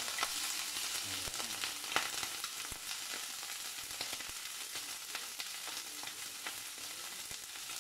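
Chicken pieces sizzling in hot oil in a stainless steel frying pan, freshly added: a steady hiss with scattered pops that slowly dies down.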